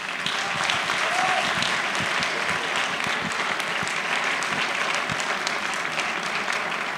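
A crowd applauding: dense, steady clapping that starts suddenly and holds at an even level.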